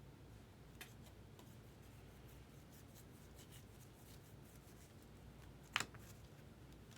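Faint rustling and light clicks of baseball cards and packs being handled, with one sharper snap about six seconds in.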